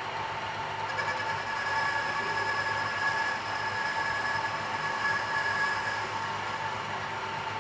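Lathe machine running steadily while its tool cuts a chamfer on the workpiece, a higher whine joining the machine hum about a second in and fading near the end.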